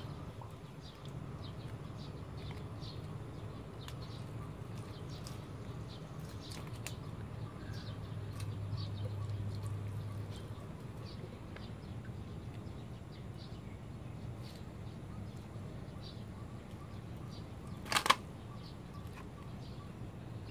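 Water trickling from a watering can's spout onto the soil of small potted seedlings, over a steady low hum, with one sharp knock near the end.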